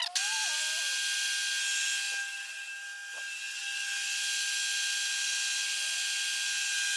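Metal lathe running with a steady whine while a boring tool takes a slow-feed finishing cut inside a bronze bush, a steady high hiss. The sound dips briefly about two seconds in.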